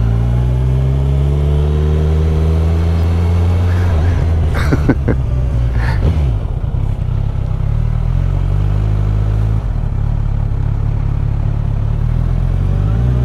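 Kawasaki Z1000SX's inline-four engine heard from the rider's seat, pulling away and rising in pitch over the first few seconds, then easing off and running steadily at low speed. A few sharp clicks come about halfway through.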